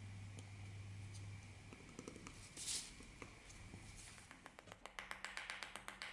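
Quick series of light hammer taps on the metal ferrule at the end of a wooden knife handle, seating it, about ten taps a second in the second half. A brief scrape comes a little before the taps start.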